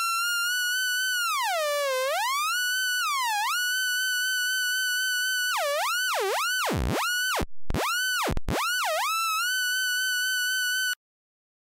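Electronic synthesizer tone, a bright buzzy note held high that swoops down and back up in pitch, first twice in slow dips, then in several fast deep plunges in the middle. It cuts off suddenly near the end.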